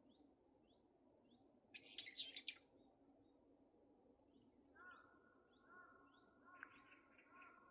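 Wild songbirds calling: a run of short, quick rising chirps repeated a few times a second, with a louder burst of song about two seconds in. A faint steady humming tone joins about five seconds in.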